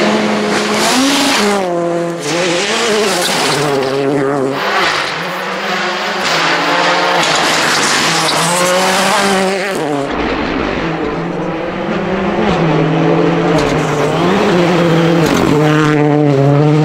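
Ford Fiesta Rally2's turbocharged three-cylinder engine revving hard on a gravel stage, the pitch climbing and then dropping sharply at each gear change, again and again.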